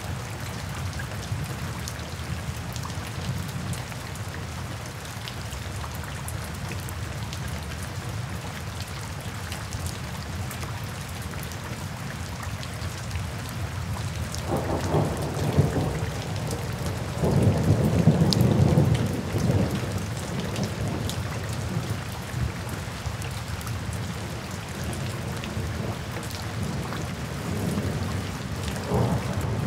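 Steady rain pattering on wet pavement. Low rumbles of thunder come in about halfway through, with a louder, longer one a few seconds later and a weaker one near the end.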